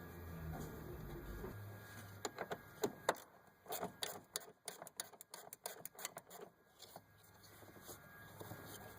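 Irregular run of sharp clicks and ticks from a quarter-inch ratchet on an extension with a Torx bit backing out screws, starting about two seconds in and dying away near the end, a few with a short metallic ring.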